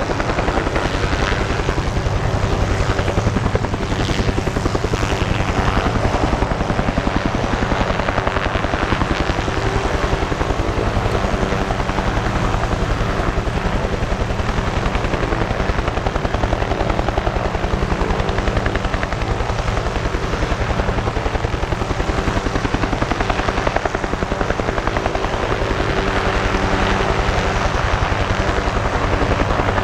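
Military helicopters, a UH-1 Huey and an OH-6, hovering low, with a steady rapid rotor beat and turbine sound.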